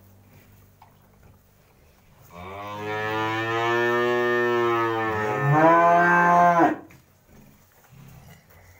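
One long cattle moo, starting about two seconds in. It holds a steady pitch, then swells louder and rises near its end before cutting off sharply.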